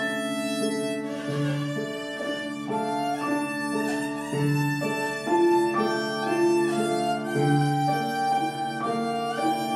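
Violin bowed in a melody of separate notes, with piano accompaniment that strikes a low bass note about every three seconds.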